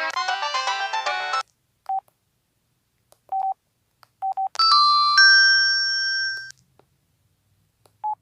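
LG 630 (PD6335) mobile phone's electronic tones. A many-note ringtone melody ends about a second and a half in, followed by a few short single beeps all at one pitch. About halfway through comes a held chime of several tones lasting about two seconds, then one more beep near the end.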